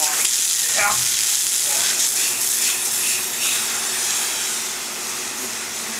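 Water spraying from a garden hose and splashing onto the body and wet pavement: a steady hiss that eases slightly near the end.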